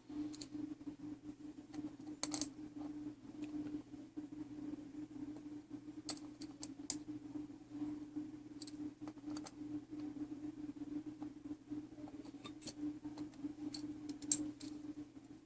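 Scattered small, sharp clicks and taps of metal tools and clock movement parts being handled during reassembly, over a steady low hum.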